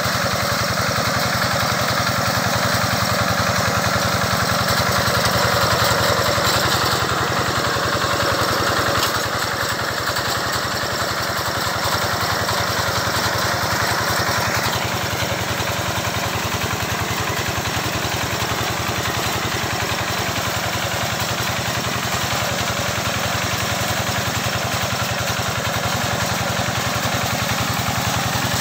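Engine of a homemade grass-cutting machine, driven through a car differential, running steadily with an even firing rhythm; its tone shifts slightly a couple of times.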